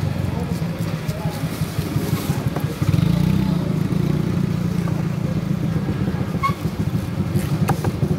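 A small engine running steadily, getting louder about three seconds in. A few sharp knocks near the end come from a cleaver on a wooden chopping block.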